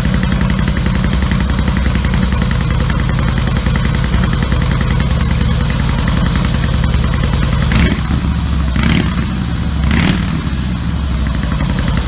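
Harley-Davidson V-twin running through Screaming Eagle slip-on mufflers, idling steadily, with three short throttle blips about eight to ten seconds in.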